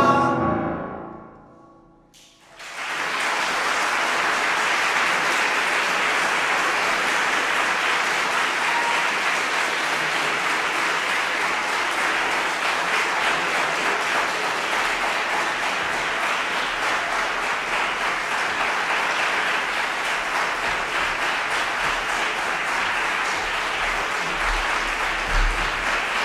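A boys' choir's last held chord fades out, followed by a short hush; then, about two and a half seconds in, a hall audience starts applauding and keeps clapping steadily.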